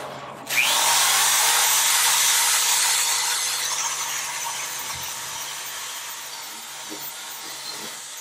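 Corded electric drill spinning a wire brush wheel against a boat propeller blade, scouring it clean. The motor hum comes in first; about half a second in the brush meets the metal with a loud scraping that eases after a few seconds and runs on until near the end.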